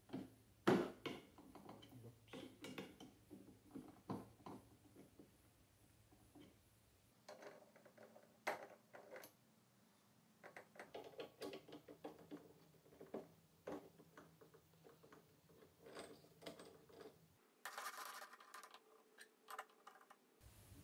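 Faint metallic clicks and clinks of a drill press's keyed chuck, chuck key and drill bit being handled as a bit is taken out and another fitted. Near the end comes a few seconds of scraping rattle.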